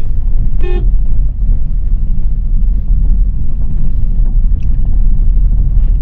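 Car driving on the road, a steady low rumble of the engine and tyres, with one short horn toot about half a second in.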